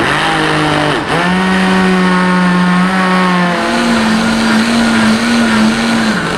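Countertop blender motor running at full speed, blending chopped red cabbage, carrot and apple with water into juice. The steady whine dips about a second in, then runs even and steps up slightly in pitch a little past halfway.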